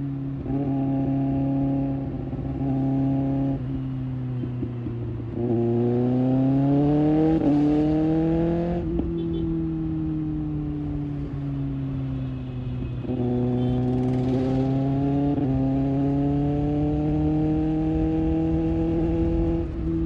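Kawasaki ZX6R inline-four motorcycle engine with an IXIL aftermarket exhaust, under way. It pulls up through the revs twice, each pull broken by a sudden drop in pitch at an upshift. Between the two runs the revs fall away as the throttle is closed.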